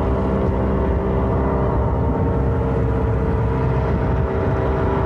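An engine running steadily: a low rumble with a constant hum that does not change in pitch.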